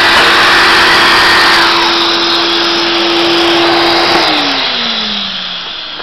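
A vacuum cleaner runs steadily through a hose on the dust port of a Bosch GST 10.8 V-LI cordless jigsaw. The jigsaw's high motor whine winds down before two seconds in. About four seconds in the vacuum is switched off, and its hum falls in pitch as it spins down.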